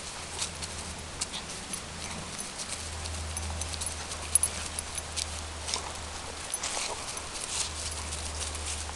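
Two dogs play-wrestling on dry grass and fallen leaves: paws scuffling with many short dry crackles, a sharper click about four seconds in, and brief dog vocal sounds now and then.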